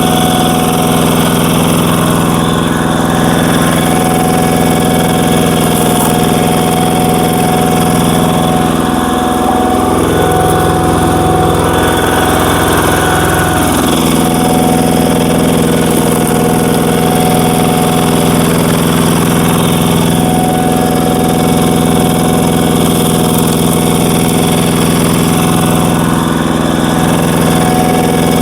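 Walking power tiller's single-cylinder diesel engine running steadily and loudly, driving a screw log splitter; its note wavers for a few seconds about ten seconds in.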